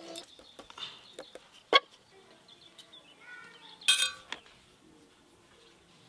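Food-prep handling sounds: a knife shaping a crumb-coated chicken cutlet on a wooden chopping board gives one sharp tap just under two seconds in, and a brief ringing clink follows about four seconds in, with soft rustling in between.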